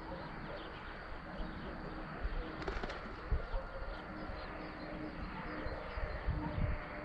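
Dove cooing, a low call held in two stretches, over steady outdoor background hiss with a few low bumps.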